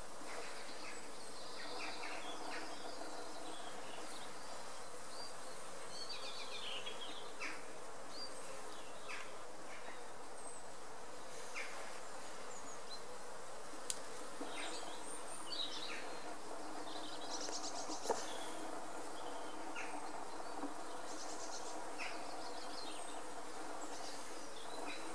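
Many honeybees buzzing at a hive entrance as foragers fly in and out, a steady hum. A couple of short sharp ticks stand out midway.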